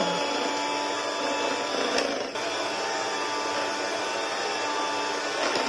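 Electric hand mixer running at a steady speed with a held motor whine, its beaters whipping cream cheese and fresh cream in a bowl. There is a brief click about two seconds in.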